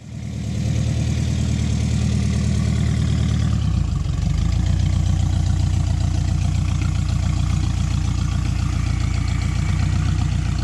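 A 1977 Volkswagen Westfalia camper's fuel-injected 2.3-litre air-cooled flat-four engine idling with a steady, even beat. The idle note changes about three and a half seconds in.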